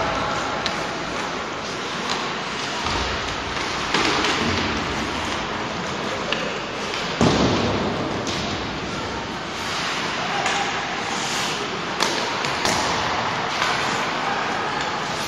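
Ice hockey play in an echoing indoor rink: puck and sticks knocking and thudding against the boards and ice over a steady background of play noise. A few sharp, echoing knocks stand out, about 4, 7 and 12 seconds in.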